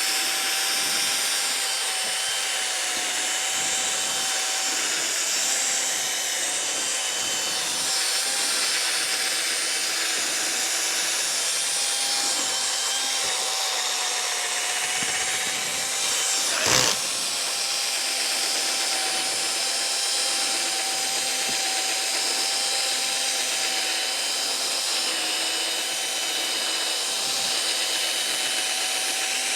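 Electric drill running steadily with a buffing attachment, polishing a plastic headlight lens with polishing compound. Its motor gives an even whine, with one brief knock about 17 seconds in.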